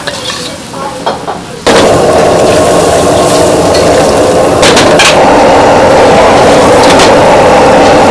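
A metal spatula clicks and scrapes against a steel wok. About two seconds in, a wok stove's gas burner turns up to full, and its loud, steady roar lasts from then on.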